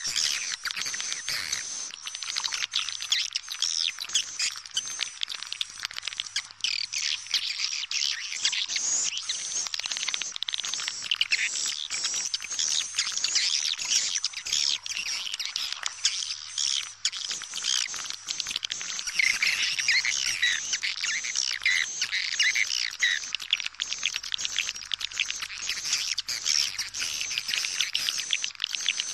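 Swiftlets chirping and twittering in a dense, unbroken chorus. It is a swiftlet lure call (suara panggil walet), the kind played in swiftlet houses to draw the birds in to roost and nest.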